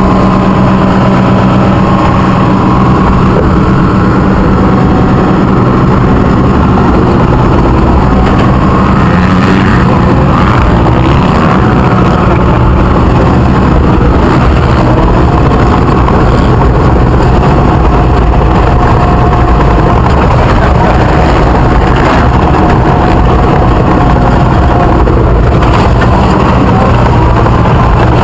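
Caterpillar bulldozer's diesel engine running loud and steady as the machine drives along in high gear. The engine note settles lower about ten seconds in.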